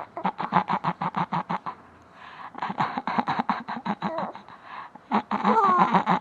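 A man making a silly noise with his voice: a fast stutter of short pulses, about nine a second, that breaks off briefly about two seconds in and again near five seconds. Near the end comes a short warbling glide in pitch.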